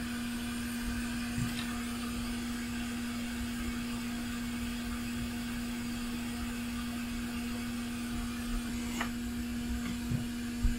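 A small electric motor whirring steadily, with one constant hum tone, under a few faint clicks about a second and a half in and near the end.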